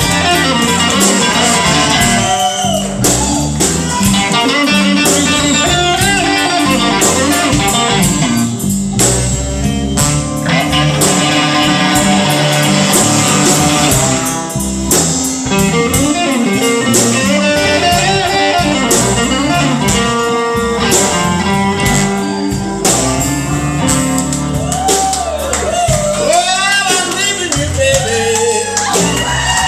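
Live blues band playing a slow blues: electric guitar over bass and drums, with a voice singing and notes bending in pitch near the end.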